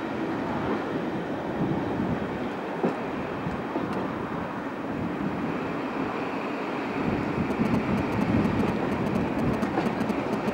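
A diesel-hauled passenger train running along the line, heard from on board: a steady rumble of wheels on rail behind Class 37 locomotive 37215. A run of faint sharp ticks comes in over the last few seconds.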